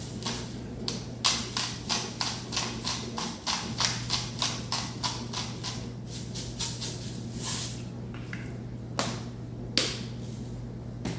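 A quick run of sharp taps or clicks, about four a second for some seven seconds, then three single taps near the end, over a steady low hum.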